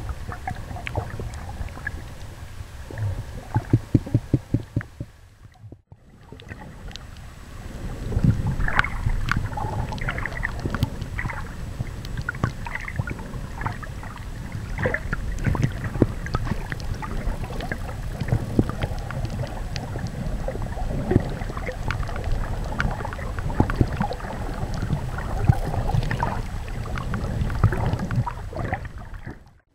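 Muffled underwater rumble and water movement picked up by a compact camera sealed in a soft waterproof bag, with scattered clicks and crackles throughout. A quick run of even pulses comes about four seconds in, and the sound drops out briefly about six seconds in.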